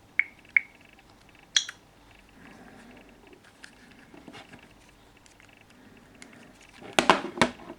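Two short electronic beeps from a phone, then a click and, near the end, a cluster of loud clicks and knocks from handling the phones.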